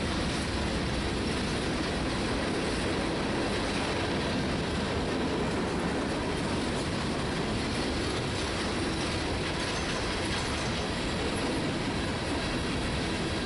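Freight train of hopper cars rolling past: a steady rumble of steel wheels on rail with clatter from the trucks and rail joints.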